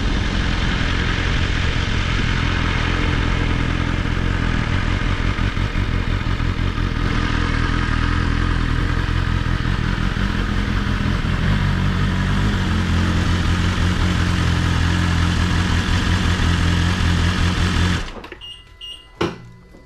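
BMW S1000RR inline-four engine running at low speed with heavy wind noise, carrying a steady buzz at around 25 mph that the rider can't explain. The riding sound cuts off suddenly near the end, leaving a quiet room with a couple of knocks.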